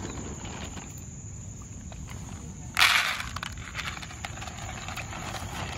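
Dry dog food poured with a short rattling rush into a plastic bowl about three seconds in, followed by dogs eating from it with small crunching clicks.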